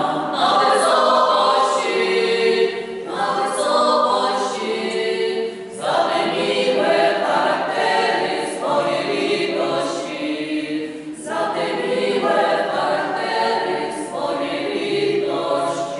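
Mixed choir of men's and women's voices singing a Polish Christmas carol (kolęda), in phrases about three seconds long with short breaks between them.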